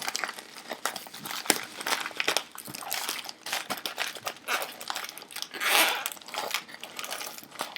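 Packaging wrap crinkling and rustling as items are unwrapped by hand, with small clicks and taps throughout and a longer, louder rustle a little before six seconds in.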